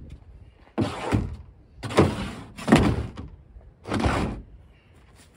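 A hard plastic sit-in kayak being handled: four short scraping, rubbing sweeps, each starting with a thud, about a second apart.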